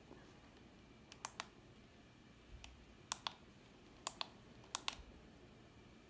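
Buttons on a handheld Fanimation learning remote clicking, about five quick press-and-release pairs spread over several seconds, over the faint steady whir of a ceiling fan running.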